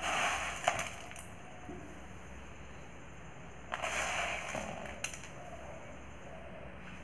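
Uncooked rice grains rustling and rattling as a heap of rice is handled on a concrete floor, in two short bursts about four seconds apart, each with a sharp click.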